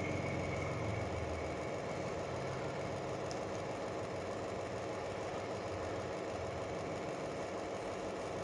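Steady mechanical hum, with a deeper rumble fading away over the first couple of seconds.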